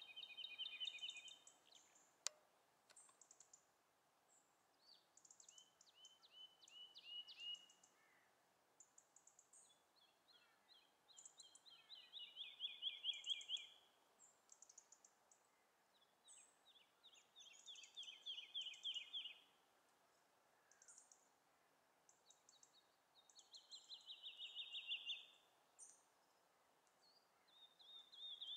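Woodlark singing from a perch: runs of rapidly repeated liquid notes that slide down in pitch, each run lasting a couple of seconds, several in turn with short pauses between and thin high notes in the gaps. A skylark's brief flight call sounds about a second in.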